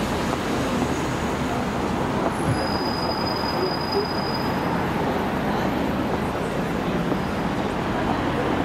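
Busy city-street ambience: a steady wash of traffic and crowd noise. About two and a half seconds in, a thin high squeal rises above it and holds for about two seconds.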